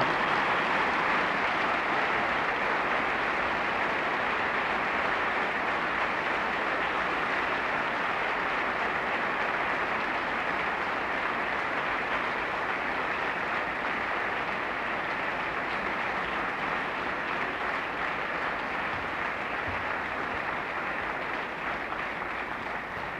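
Audience applauding: a long, steady round of clapping that tapers off near the end.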